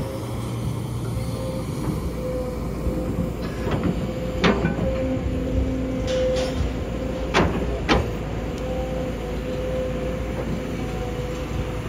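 Kobelco hydraulic excavator running with a steady low drone and whine while its bucket digs into stony soil, with about five sharp knocks in the middle as the bucket strikes rock.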